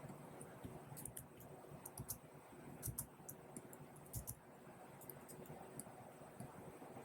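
Faint, irregular clicks of a computer keyboard being typed on, in short quick runs.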